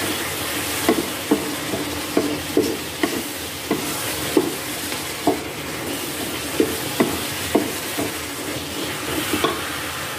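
Wooden spatula stirring chicken and beans in an electric skillet, knocking irregularly against the pan over a steady sizzle of frying.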